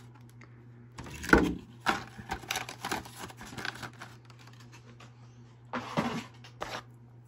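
Clear plastic blister trays of parts being handled and moved aside, giving a few seconds of irregular crackling and clicking, then two brief rustles near the end. A faint steady hum runs underneath.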